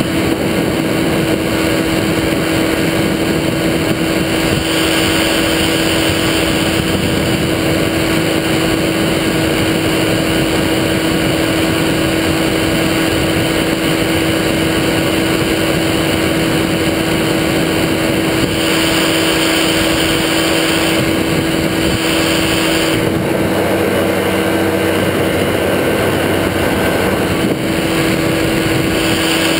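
Powered parachute's engine and propeller running at a steady cruise in flight, a constant loud drone with rushing noise over it.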